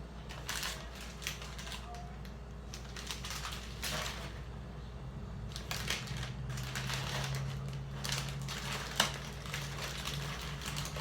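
Plastic snack wrappers rustling and crinkling in the hands in irregular clicks and crackles, with one sharper click about nine seconds in. A low steady hum comes in about halfway through.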